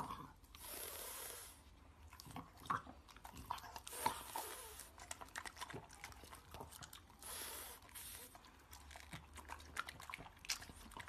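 French Bulldog biting and chewing a strawberry from a hand: many small wet clicks and smacks of the mouth and teeth. Three short stretches of hissing, about a second each, come about half a second, four seconds and seven seconds in.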